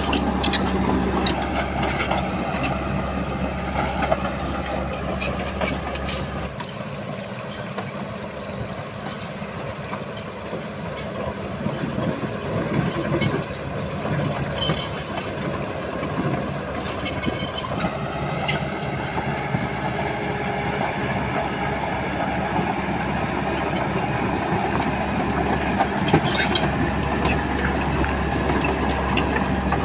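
Heavy construction machinery, a mini excavator and a bulldozer, working as they spread stone for a road base: diesel engines running steadily, with frequent sharp clicks and clanks throughout.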